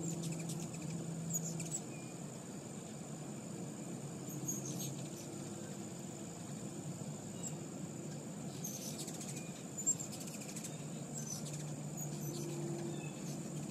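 Ruby-throated hummingbirds' high, squeaky chip notes in short chattering bursts, several times.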